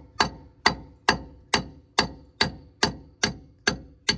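A 3-pound hammer striking an old lug nut threaded onto a wheel stud, driving the stud out of the wheel hub. The blows come steadily, about two a second, each with a sharp metallic ring.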